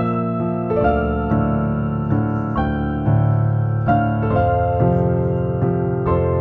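Background music: a piano playing sustained chords that change every half second to a second.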